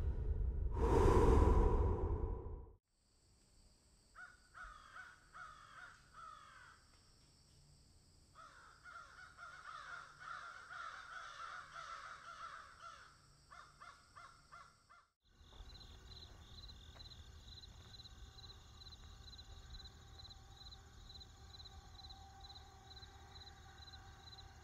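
A loud rushing noise, then a run of repeated harsh calls from a bird. After an abrupt change comes a steady tone with a fast regular pulse, about two or three beats a second.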